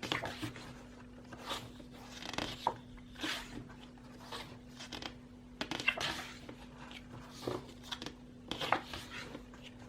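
Album photobook pages being turned and handled, a short papery swish roughly every second, over a faint steady hum.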